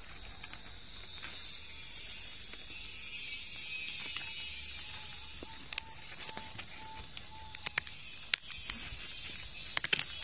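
Corn husk and leaves rustling and crackling as a hand pulls at an ear of corn on the stalk and tears open the tip of its husk. Sharp snaps and clicks come more often in the second half.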